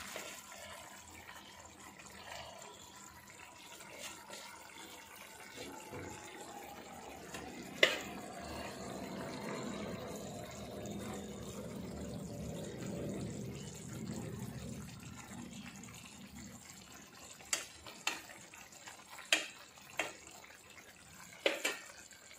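Small-fish curry simmering in a pan, a soft bubbling that swells in the middle, as coriander leaves are stirred in. A metal spoon clinks against the pan once about eight seconds in and several times near the end.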